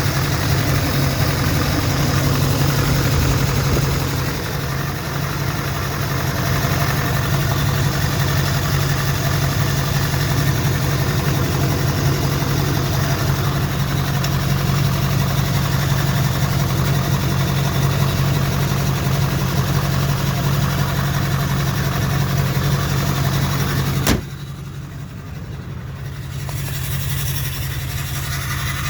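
2004 GMC's LLY Duramax 6.6-litre V8 turbo-diesel idling steadily, with a misfire that the owner puts down to injectors in need of replacement. Near the end a click comes, and the engine sound suddenly drops much quieter, then rises partly again.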